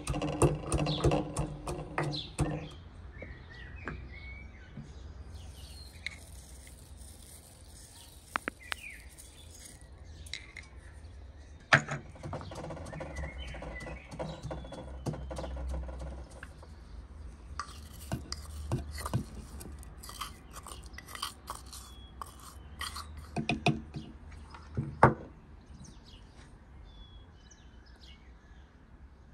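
Wooden pestle knocking and grinding in a wooden mortar: irregular taps and knocks with stretches of scraping, two sharper knocks about 12 and 25 seconds in. Birds chirp in the background.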